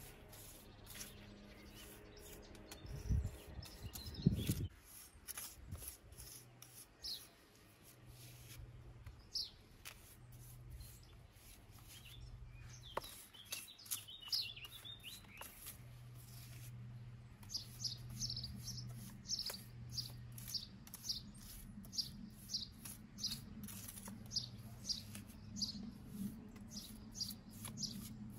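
Scraping and ticking of hand tools working lime mortar on stone, with two heavy thumps a few seconds in. From a little past halfway a small bird calls over and over, short high chirps about two a second.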